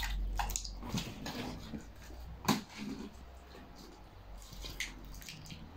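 A large ball of slime kneaded and squeezed by hand, giving faint sticky clicks and squelches, with one sharper click about halfway through.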